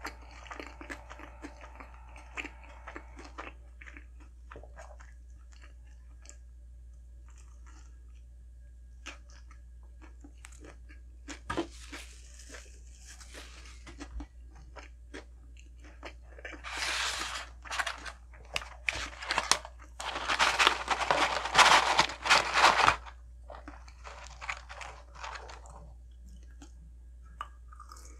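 Close-miked chewing and crunching of McDonald's food, with scattered small mouth clicks. A louder stretch of crunching comes about two-thirds of the way through.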